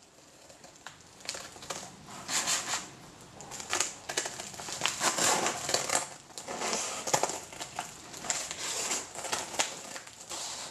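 Scissors cutting along the edge of a padded paper mailer, an irregular run of crisp snips and paper crinkling as the envelope is handled.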